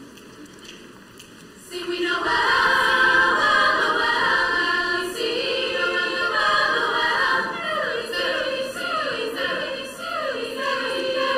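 High school girls' choir singing, coming in suddenly about two seconds in after a moment of quiet hall noise.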